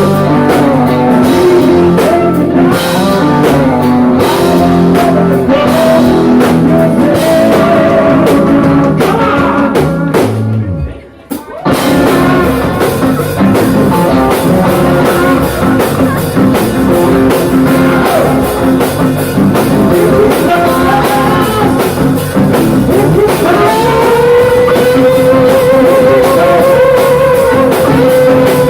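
Rock band playing live: electric guitar, bass and drum kit. The band stops dead for about a second a third of the way through, then comes back in, and near the end a long note with vibrato is held over the band.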